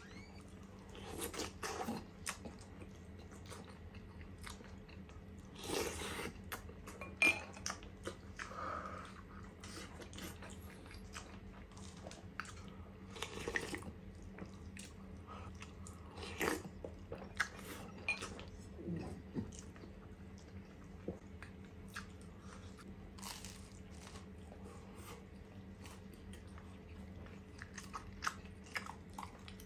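Eating sounds: chewing and crunching bites of a toasted ham sandwich, with occasional slurps of crab and corn soup from a plastic spoon. The sounds come in short, irregular bursts, with a few louder ones among many soft clicks.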